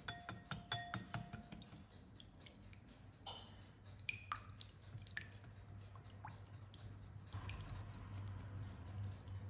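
Wire balloon whisk beating a runny batter in a glass bowl: a quick run of ringing clinks against the glass in the first second or so, then scattered single taps, and a soft swishing near the end.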